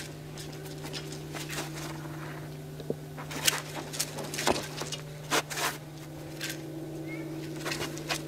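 Sharp swishes and snaps from a Shaolin straight-sword (jian) form in motion, about a dozen at irregular intervals, over a steady low hum.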